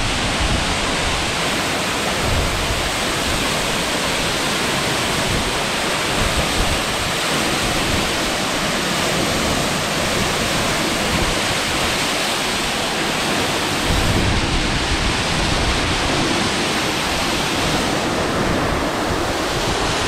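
Powerscourt Waterfall, about 120 metres high, plunging onto the rocks and pool at its foot, heard from close under the falls: a loud, steady rush of falling water.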